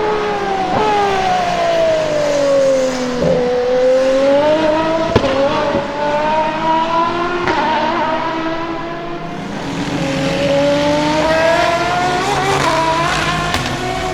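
Aston Martin Valkyrie AMR-LMH hypercar's V12 engine on track. Its pitch falls for the first three seconds or so, then climbs as the car accelerates, drops again about nine seconds in and climbs once more. There is a single sharp crack about five seconds in.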